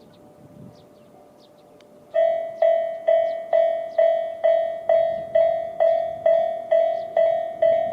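Electronic warning bell of a Tobu Railway level crossing starting about two seconds in, ringing an even ding-ding of about two strikes a second, each strike decaying before the next. It is the crossing alarm that sounds as a train approaches.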